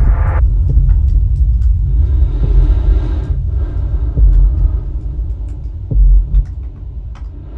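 Progressive trance music: a heavy deep bass with scattered light ticks, a swell of airy noise about two to three seconds in, and a strong bass hit about six seconds in.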